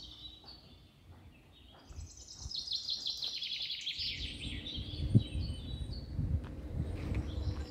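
Small birds chirping and singing, with a fast run of high notes about two to four seconds in. From about four seconds in there is a low rumble under them, with a dull thump about five seconds in.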